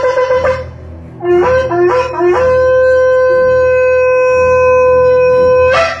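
Shofar being blown: a rapidly pulsing blast ends about half a second in, then after a short pause come three short blasts that each rise in pitch, followed by one long, steady blast that flares briefly as it ends.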